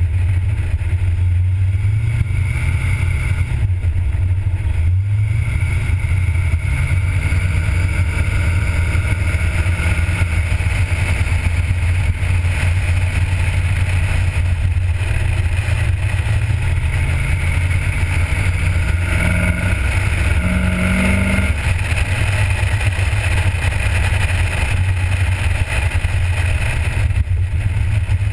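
A 1977 Corvette's 350 small-block V8 running under way, its pitch slowly rising as the car gathers speed, then climbing more sharply about two-thirds of the way through before dropping back. Heavy wind rush on the microphone.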